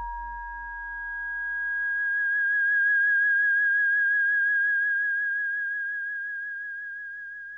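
Electronic music: a sustained chord of pure, sine-like tones over a low hum that dies away in the first couple of seconds. The highest tone swells, wavers in pitch with a slow vibrato, then slowly fades.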